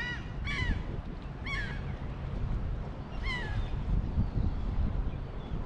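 Gulls calling: a few short, arched calls, the last and clearest one falling in pitch about three seconds in, over a steady low rumble of wind on the microphone.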